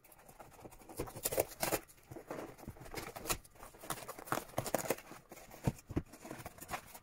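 Cardboard mailer box being torn open by hand: irregular tearing, scraping and rustling of cardboard, with a few sharp clicks.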